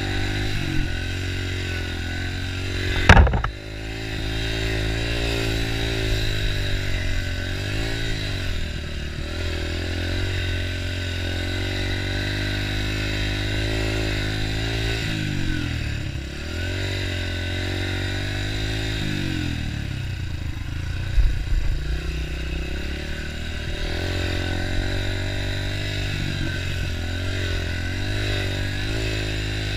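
Dirt bike engine running under way, its revs rising and falling again and again as the throttle is worked. A sharp loud thump about three seconds in, and a smaller one about twenty-one seconds in.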